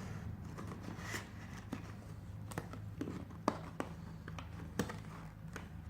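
Packaging being handled and opened by hand: scattered light clicks and taps, about seven of them spread irregularly, over a steady low hum.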